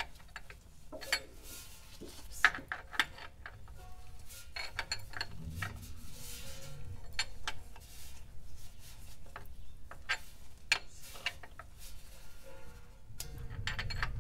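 Irregular metallic clicks and clinks of a wrench on the 1931 Ford Model A's transmission filler plug as the plug is screwed back in after an oil-level check.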